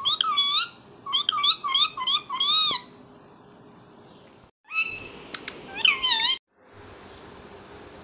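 Parakeet giving a series of short, loud squawks that each rise and fall in pitch: one at the start, a quick run of five from about a second in, then a few more around five to six seconds.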